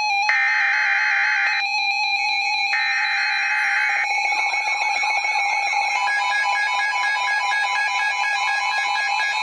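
Emergency Alert System signal on NOAA Weather Radio. In the first four seconds there are two buzzy, screeching data bursts of the alert header, each about a second and a half long, with a pause between them. A steady tone runs underneath, and after about four seconds the bursts give way to a continuous electronic alarm-like tone pattern.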